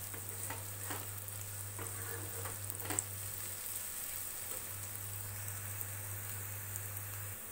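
Chopped onions frying in hot oil in a kadhai, a steady sizzle as they turn golden pink, with a few short scrapes of a metal spatula against the pan as they are stirred.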